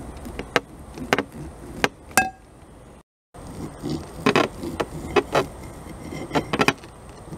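A knife cutting through a chorizo sausage on a ceramic plate: a run of clicks, taps and scrapes as the blade saws and strikes the plate, one tap ringing briefly about two seconds in. The sound drops out for a moment around three seconds in.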